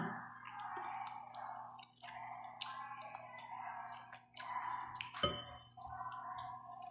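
A person slurping and chewing instant noodles, with wet sucking and smacking sounds. A sharp clink about five seconds in, a fork against the bowl.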